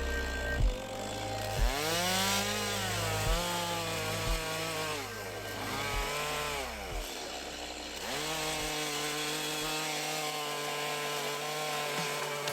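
Gas-powered chainsaw carving into wood, its engine revving up and easing back down several times as it cuts.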